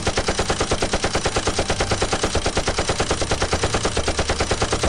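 Rapid automatic gunfire sound effect: an unbroken burst of about ten shots a second.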